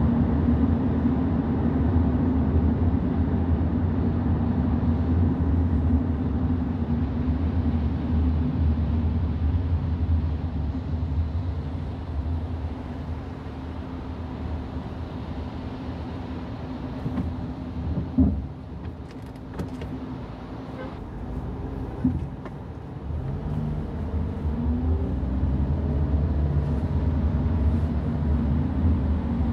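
Car driving on wet roads, heard from inside: a steady low rumble of engine and tyres that eases off for a stretch, then rises again in pitch as the car speeds back up. Two sharp knocks come about four seconds apart in the quieter middle part.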